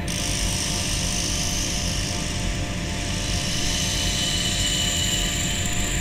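Corded electric demolition jackhammer running continuously with its chisel bit driven into rock, a rapid, steady hammering as it breaks the stone.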